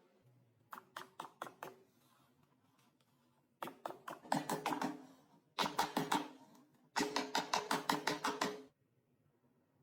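A utensil tapping rapidly against a ringing kitchen vessel, about six taps a second, in four short runs.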